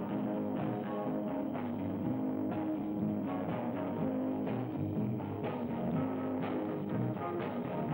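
Electric guitars and drums playing a droning, improvised rock jam: held guitar notes ring on while drum hits fall at an irregular pace.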